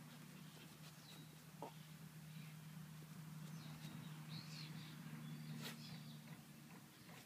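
Faint scraping of a West Highland white terrier's paws digging in loose soil, over a low steady hum.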